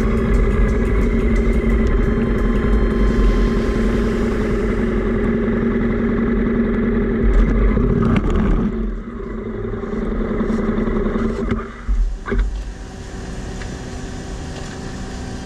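Honda motorcycle engine idling steadily, heard from a camera on the bike. About eight seconds in, a car strikes it from behind and the bike goes over, with sharp knocks as it hits the road and the engine noise dropping. More thuds come about twelve seconds in, then a quieter steady engine hum.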